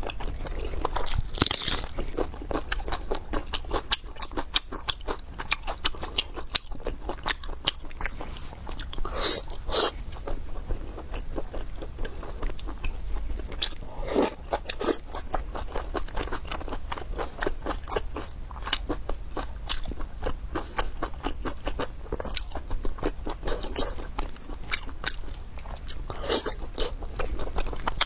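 Close-miked chewing of soft, glazed braised pork belly: a steady run of wet mouth clicks and smacks, with a few louder bites and slurps now and then.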